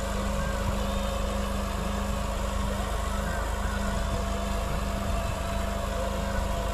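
Tractor's diesel engine running at a steady speed, a constant low drone.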